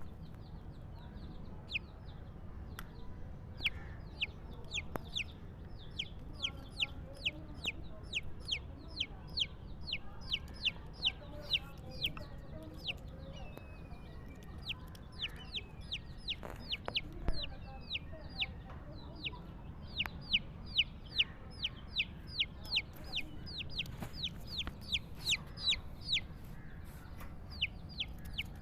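Small birds peeping: a steady run of short, high chirps that each fall in pitch, two or three a second, over a faint low background hum.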